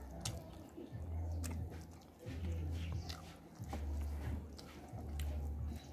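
Chewing of fish and rice: mouth clicks and smacks over a low thud that comes back about once a second.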